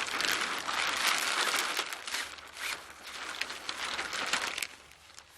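Stiff sail cloth rustling and crinkling as the sail's sleeve is worked down over the kayak mast, a busy scrunching noise that dies away near the end.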